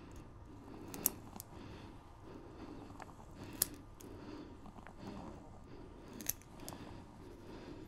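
Guillotine-type pet nail clipper snipping a cat's claws: three sharp clicks, about two and a half seconds apart.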